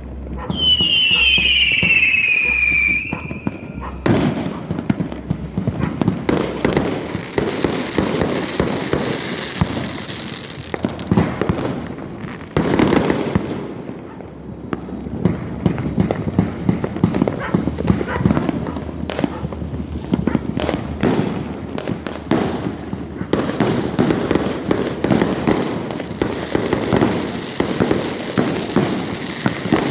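Fireworks going off: a whistling firework's falling whistle in the first few seconds, then a dense, continuous barrage of pops, bangs and crackling.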